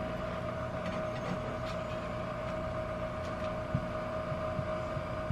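Steady hum of a kitchen appliance running, one held tone, with a few faint knocks of things being handled about two thirds of the way through.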